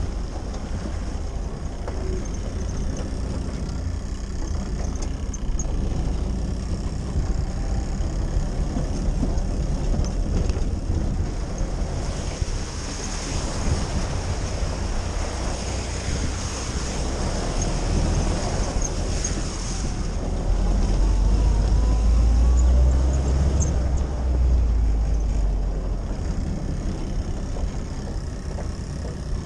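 Willys Jeep engine running with tyre noise on a wet track, heard from inside the soft-top cab. About halfway through there is a wash of splashing as the Jeep drives through a shallow ford. The engine rumble grows louder about two-thirds of the way in.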